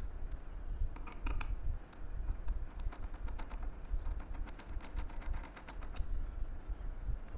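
Light metallic clicks and clinks of ball bearings and bolts being handled against a homemade steel bracket and base plate, with a cluster of sharper clicks about a second in, over a steady low rumble.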